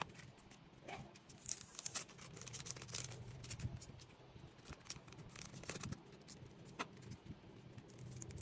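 Photocards in clear plastic sleeves being picked up, shuffled and set down: scattered soft clicks and plastic rustling over a low steady hum.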